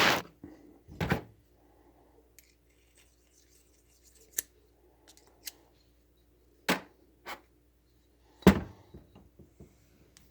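Sharp metallic clicks and taps from small Farmall 560 carburetor parts being handled and fitted during reassembly, about seven at irregular intervals, the loudest near the start and about eight and a half seconds in, with a few lighter ticks near the end.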